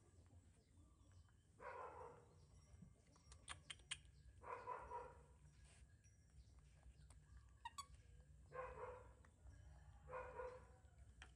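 A dog barking faintly, four separate barks spaced two to four seconds apart, with a few small clicks between them.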